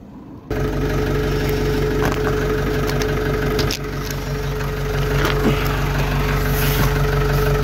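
An engine idling steadily, with a constant low hum and a steady mid-pitched tone. It starts suddenly about half a second in.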